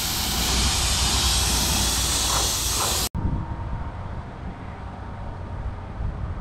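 Gravity-feed compressed-air paint spray gun hissing steadily as it sprays paint, stopping abruptly about three seconds in and leaving only a faint outdoor background.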